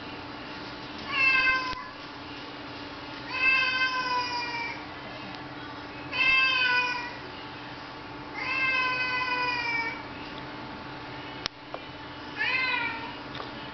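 Domestic cat meowing insistently to be let outside: five drawn-out meows a few seconds apart, most sliding down slightly in pitch. A single sharp click falls between the last two meows.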